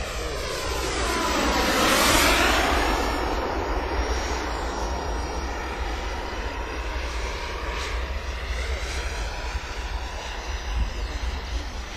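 Turbine-powered radio-controlled model jet flying past with a rushing jet noise, loudest about two seconds in, then carrying on more steadily as it moves away.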